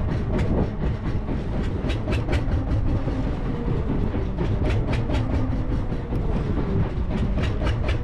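Small fishing boat at sea: a steady low rumble with irregular sharp clicks and knocks over it, several a second at times.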